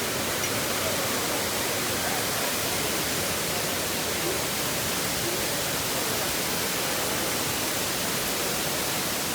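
Waterfall rushing, a steady, even roar of falling water with no breaks.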